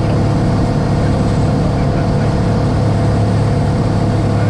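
Single-engine light aircraft's piston engine and propeller running at a steady power setting in flight, heard from inside the cockpit as a loud, even drone with a deep hum.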